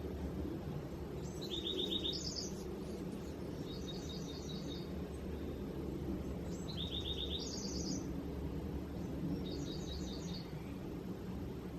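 A songbird singing: short phrases of quick repeated notes, one starting about a second in and the next roughly every two to three seconds, some phrases stepping up in pitch. A steady low rumble runs underneath.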